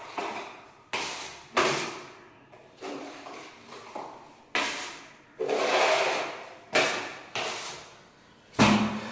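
Steel putty blade spreading and scraping wall putty across a wall in repeated strokes, roughly one a second, each starting sharply and fading. One longer smoothing stroke comes just past halfway, and the loudest stroke comes near the end.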